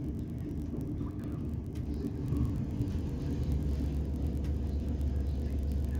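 Steady low rumble inside a Class 455 electric multiple unit carriage as the train runs slowly into a station platform. A low hum grows a little louder about two seconds in.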